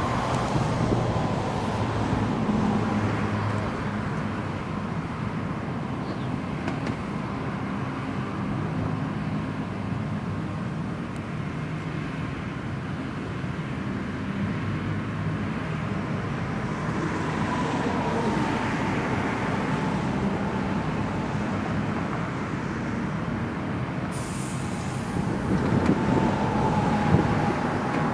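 A heavy engine running steadily amid outdoor vehicle noise, with a faint whine that drifts a little in pitch. A brief hiss comes near the end.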